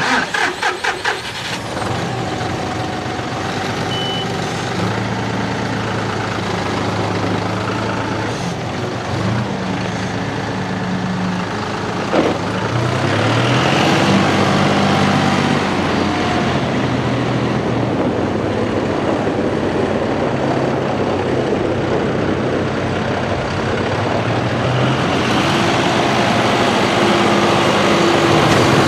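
John Deere 5055E's three-cylinder turbo diesel being cranked over with a few even pulses, catching and then running steadily. The engine speeds up about twelve seconds in and keeps running.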